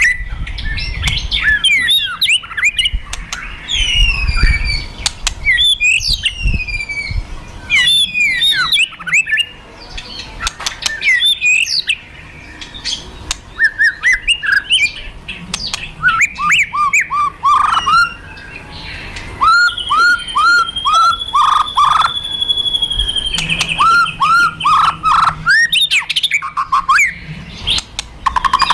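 White-rumped shama (murai batu) singing a fast, varied song of whistles and downward-sliding notes. Harsh crackling rattles ('kretekan') and sharp 'shot' notes ('tembakan') are mixed in, with a quick run of repeated sliding notes and a held whistle past the middle. This is the shama's agitated fighting song, used as a lure to provoke other shamas.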